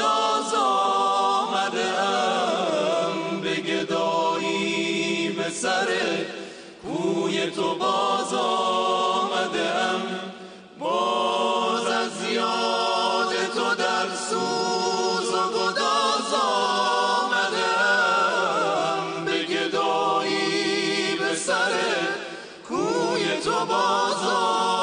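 Male a cappella vocal ensemble singing a devotional chant together, in long held, ornamented phrases with brief pauses for breath about seven, eleven and twenty-three seconds in.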